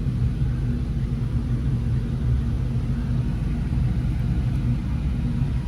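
Steady low rumble and hum of a work van's idling engine, heard from inside the enclosed cargo area.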